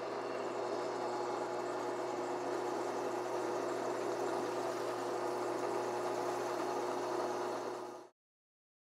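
Drill press spinning a wire wheel brush against the steel Porsche G50 pedal-cluster bracket, scrubbing off surface rust: a steady motor hum with the scratching of the wire bristles on metal, cut off abruptly near the end.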